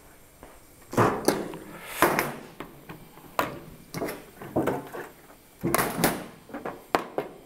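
Irregular clunks and knocks of things being picked up and put down on a steel-topped workbench, about a dozen in all.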